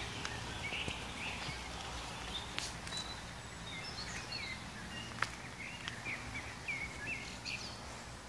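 Small birds chirping in short, quick calls over a steady low outdoor background hum, with two sharp clicks, about two and a half and five seconds in.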